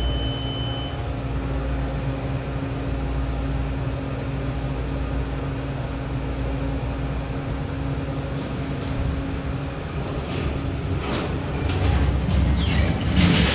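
2015 MEI hydraulic elevator riding up, with a steady low hum from the car and its pump. There is a short high beep at the start. About ten seconds in the ride stops with a few knocks, and the doors slide open near the end.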